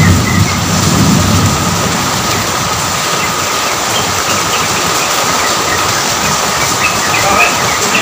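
Steady heavy rain with a low rumble of thunder in the first second or so.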